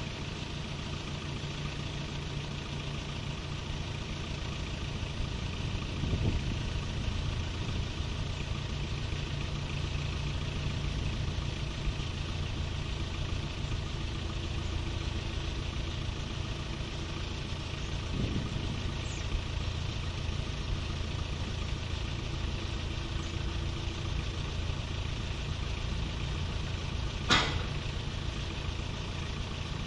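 Heavy diesel engine running steadily, with one sharp click near the end.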